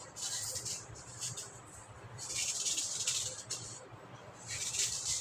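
Crumbly clay being carved and broken up: three stretches of grainy, hissing scraping and crumbling, the longest lasting over a second in the middle.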